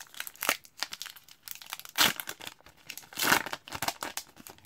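Foil trading-card pack wrapper being torn open and crinkled as the cards are pulled out: a run of sharp crackles, with the loudest rips about two seconds in and again just after three seconds.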